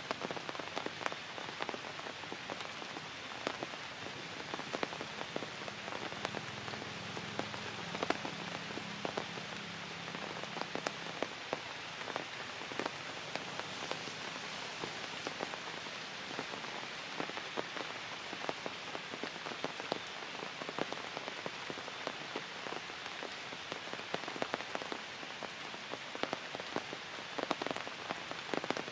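Steady rain falling on leaves and branches, a constant hiss with many separate drops hitting close by.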